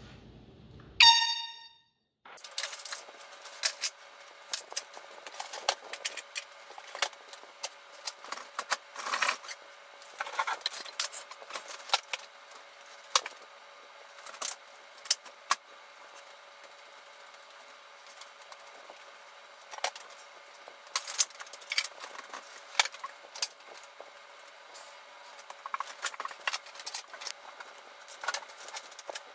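A single loud electronic beep about a second in. Then knocks, clicks and clunks of an over-the-range microwave being unfastened and lifted off its wall mounting plate, over a faint steady hum.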